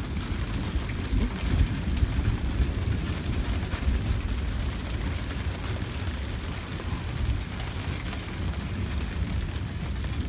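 Rain and gusting wind of a severe thunderstorm, with the wind buffeting the microphone in an uneven low rumble.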